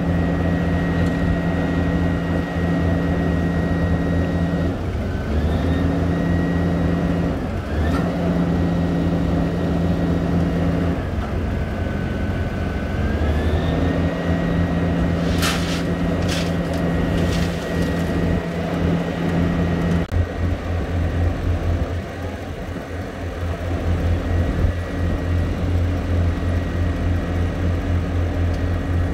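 Heavy diesel engines of a Vögele Super 1800 asphalt paver and a dump truck running steadily while the truck tips asphalt into the paver's hopper, with a machine hum that cuts in and out several times and a high whine that steps up and down in pitch. A few sharp clanks a little past halfway.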